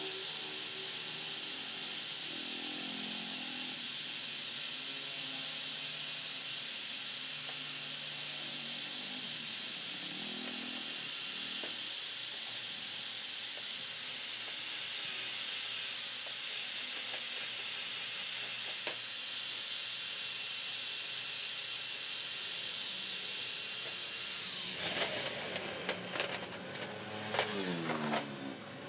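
Angle grinder with a red abrasive disc running steadily, a loud hiss as it scours rust off small steel scale parts. About 24 s in it is switched off and winds down with a falling whine, among several sharp knocks.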